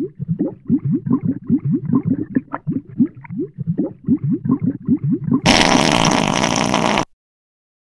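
Underwater bubbling sound effect: a run of low bubble gurgles, about three or four a second, then a loud rush of water noise for about a second and a half that cuts off suddenly.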